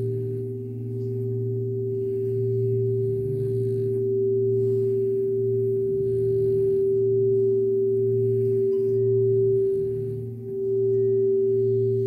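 Crystal singing bowls ringing together in a steady, sustained drone of several layered tones that waver gently, with a brief dip in loudness near the end.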